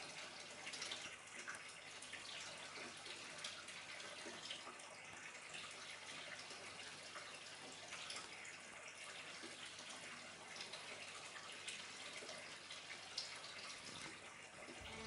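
Water pouring from a pond filter's outlet pipe into a turtle pond: a faint, steady splashing with small drips.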